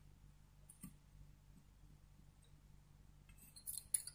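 Faint, sparse clicks and ticks of soldering work on a TV circuit board, a resistor lead and soldering iron against the board, over a low steady hum. There is a single click about a second in and a quick cluster of clicks near the end.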